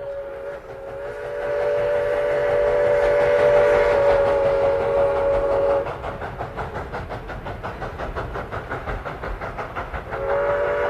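Train whistle blowing a long chord of several close tones for about six seconds. It is followed by a fast, even rhythmic beat of the running train, and the whistle sounds again near the end.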